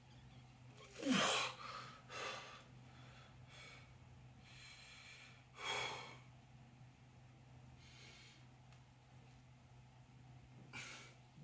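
A man's forceful breaths as he strains to bend a grade 8 bolt by hand: a series of sharp exhalations, the loudest about a second in with a short falling grunt, and others around two, six and eleven seconds.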